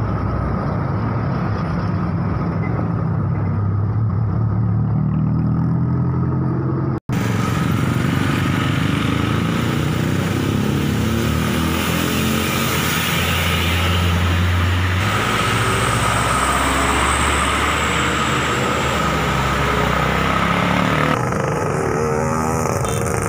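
Heavy road traffic passing close by: the engines of trucks, cars, a bus and motorcycles, their pitch rising and falling as each one goes past. The sound drops out for an instant about seven seconds in.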